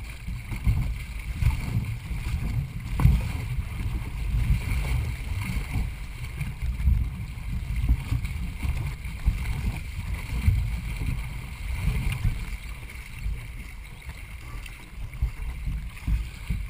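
Racing canoe under way: water rushing along the hull, with a fluctuating low rumble on the hull-mounted camera's microphone and an occasional faint knock.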